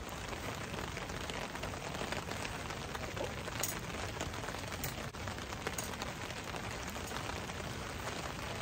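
Steady patter of rain mixed with a wood fire crackling, with a few sharp pops in the middle.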